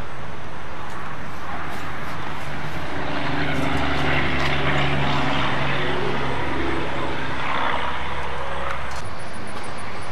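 An engine running: a steady low hum that swells from about three seconds in, over a rushing hiss, then drops away near nine seconds.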